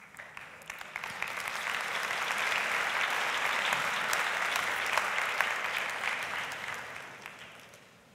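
Audience applauding: a crowd's clapping that builds over the first couple of seconds, holds, and dies away shortly before the end.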